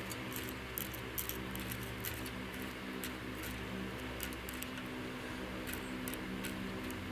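Solder wire melting in an electric solder pot, its flux crackling in irregular faint high ticks over a steady electrical mains hum.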